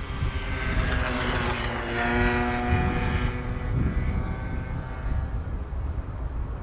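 Jet airliner engines at low taxi power as a jet moves past: a steady whine of several tones that swells about two seconds in and then fades, over a constant low rumble.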